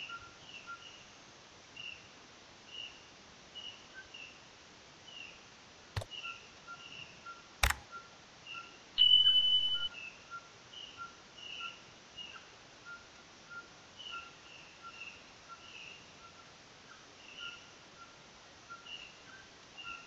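Forest stream ambience with a soft hiss, repeated short high chirps and a steady faint ticking from small animal calls. Midway, two sharp mouse-style clicks are followed by a bright electronic ding lasting about a second, from a subscribe-button animation.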